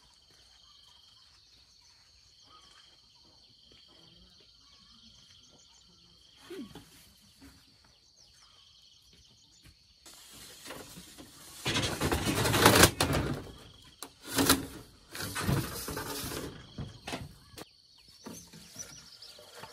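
Insects chirring steadily, with a few faint chirps. About halfway in, a run of loud, irregular rustling and knocking noises close by, loudest a little after that and coming in uneven spurts.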